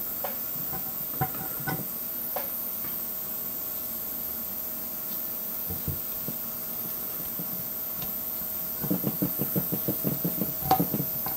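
Saab B234 oil pump gears being handled in their cast housing: a few light metal clicks early on, then, about three-quarters of the way through, a quick run of scraping and rattling as the outer gear is worked loose from the pump housing.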